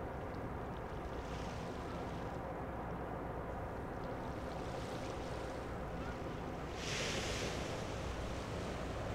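Waterside ambience: a steady low rumble with wind on the microphone. About seven seconds in, a louder hiss of waves washing comes in.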